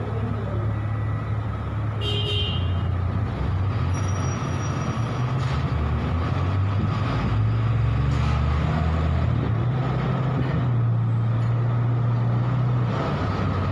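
A vehicle engine running steadily with a low hum that shifts slightly in pitch. There is a short high-pitched toot about two seconds in.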